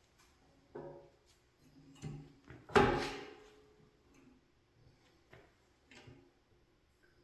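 Steel parts of a belt grinder being handled while it is stopped: a few light knocks and one loud clank just under three seconds in that rings briefly as it fades.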